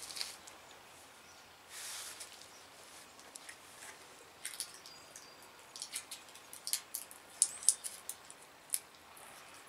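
Fingernails scratching and picking at the plastic film on a freshly cemented tire patch: a run of short, faint scratches and clicks, coming thicker in the second half. The film is not coming off.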